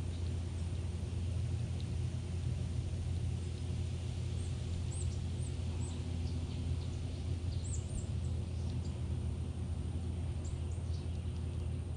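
Steady low rumble of suburban background noise, with faint short high bird chirps scattered through it, a few in the middle and more near the end.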